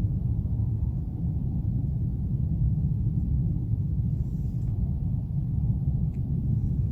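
Steady low rumble with no distinct beats or events, its energy deep in the bass, of the kind put forward as an unexplained noise from the sky.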